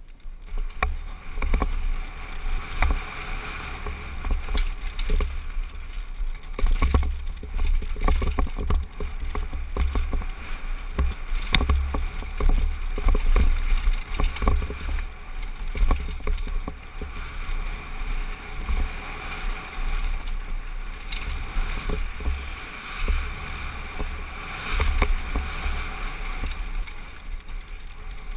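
Downhill mountain bike descending a rough dirt trail, heard from a helmet-mounted camera: wind buffeting the microphone as a steady low rumble, with frequent rattles and knocks from the bike over stones and roots.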